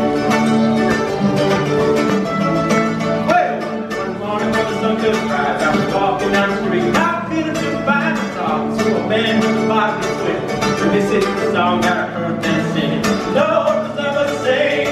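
Acoustic guitar and mandolin played live in a bluegrass song, with singing from about three seconds in.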